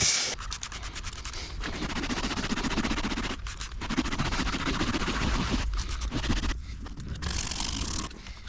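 Rapid, crackly scratching and scraping in quick strokes, stopping briefly a few times: the interior of a Mini being scrubbed and cleaned.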